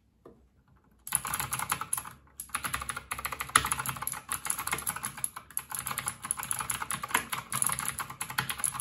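Typing on a Redragon Kala mechanical keyboard with clicky Outemu Blue switches: a fast, dense run of sharp key clicks that starts about a second in.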